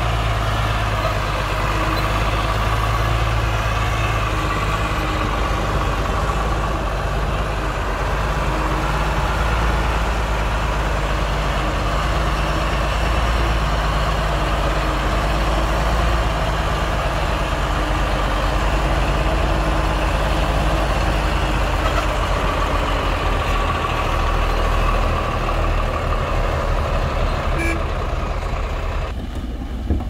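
Heavy diesel machinery running steadily: a deep, constant engine drone with a rough, noisy layer above it. The upper noise cuts off abruptly just before the end.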